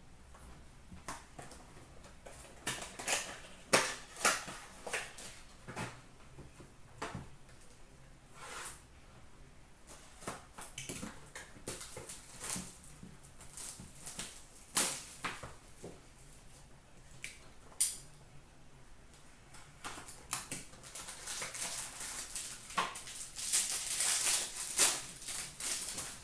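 Hands handling a hockey card box and its cards: scattered crinkles and sharp clicks of cardboard and card stock, then a denser stretch of crackling rustling in the last few seconds as the box is opened and the cards pulled out.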